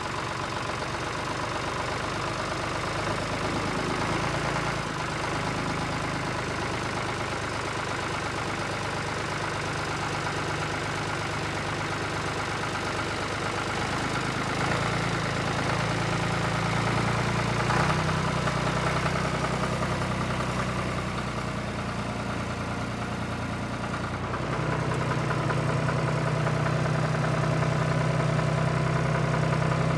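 Vintage tractor engines running at low road speed, a steady low engine note with a regular pulse that changes pitch a few times as tractors pass.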